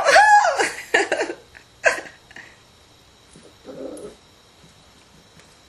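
Yorkshire terrier vocalizing in excitement: a loud run of high, arching whines and yips in the first second or so, a sharp single yip about two seconds in, and a shorter, quieter, lower sound just before four seconds.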